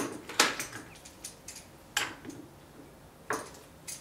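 Metal screw clamp being fitted and tightened on a wooden batten: a string of irregular sharp clicks and knocks, the loudest about half a second in.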